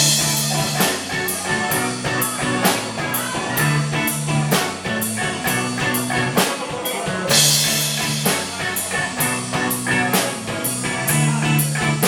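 Live rock band playing an instrumental passage between sung lines: a drum kit keeping a steady beat with cymbal hits, over held bass and guitar notes.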